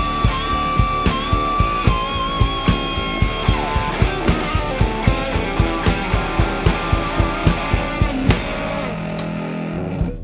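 Live blues-rock band playing: an electric guitar lead holds long, bent notes over a steady drum beat and bass. The drums stop after a final hit about eight seconds in, and the last chord rings on until it drops away near the end.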